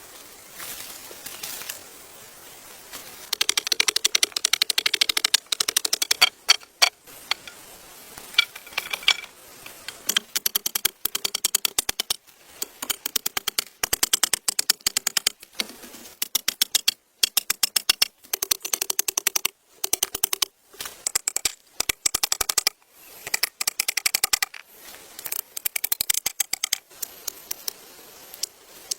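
Runs of rapid, sharp clicking, each run lasting a second or two, broken by short pauses.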